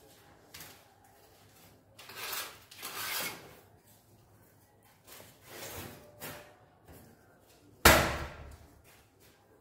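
A steel trowel scraping wet cement mortar in several drawn-out strokes while a wall tile is buttered. Near the end comes one sharp knock as a ceramic tile is set against the wall, the loudest sound.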